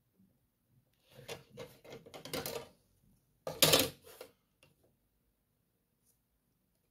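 A plastic set square and a drawing board's sliding parallel rule being dragged across the paper and set in place. It comes as a run of short scrapes and knocks, then one louder scrape about three and a half seconds in.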